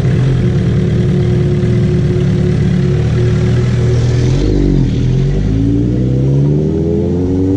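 Sportbike engine running at modest revs. Its pitch dips about four and a half seconds in, then climbs steadily for about three seconds as the bike accelerates.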